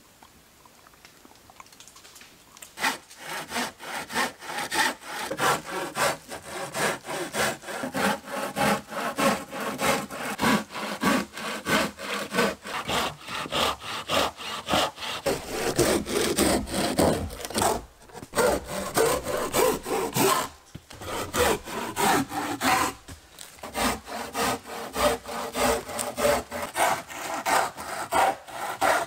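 Hand saw cutting through the overhanging ends of wooden floor boards, in steady back-and-forth strokes of about two a second. It begins about three seconds in, with a few short pauses between cuts.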